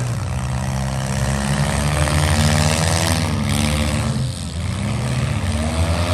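Demolition derby cars' engines running and revving, the pitch rising and falling as the drivers accelerate and back off around the arena.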